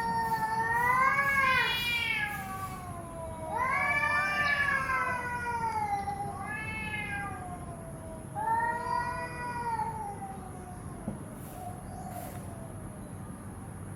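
A cat meowing: four long, drawn-out meows, each lasting one to three seconds and bending up and down in pitch, the last one ending about ten seconds in.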